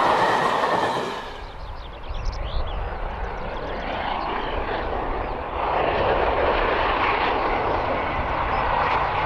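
Steam-hauled train on the move behind an LNER V2 steam locomotive. Wheels clatter on the rail joints until a sudden change about a second in, after which the train is heard as a steady rumble and roar that gets louder about halfway through.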